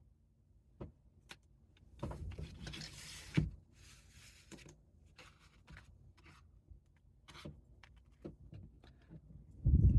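Small plastic and metal pistol parts handled on a bench: scattered light clicks and taps, a rustling scrape about two seconds in that ends in a sharper knock, and a heavy low thump near the end.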